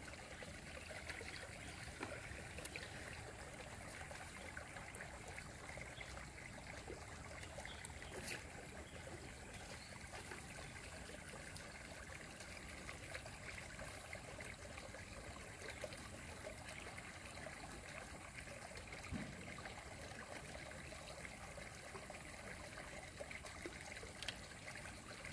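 Faint, steady outdoor ambience of water trickling, with a few small ticks.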